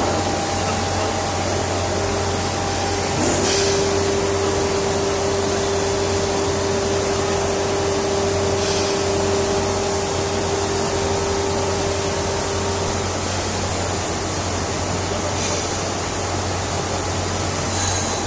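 Aluminium die casting machine running with a steady mechanical hum, its hydraulic unit adding a steady whine that sets in with a short hiss about three seconds in and fades out about ten seconds later. A few brief hisses come at intervals.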